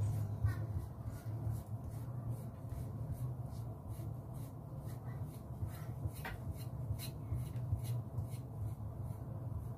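Kitchen knife lightly scoring a cleaned squid body on a plastic cutting board: a regular run of soft, scratchy strokes, about three a second, over a low steady hum.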